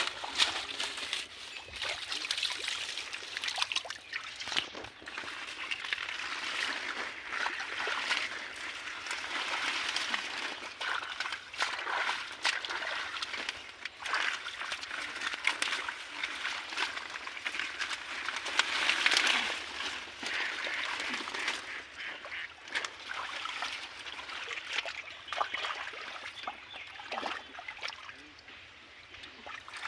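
Water splashing and sloshing in shallow muddy water, with many short irregular splashes and wet rustling as hands work through floating water hyacinth. It quiets down near the end.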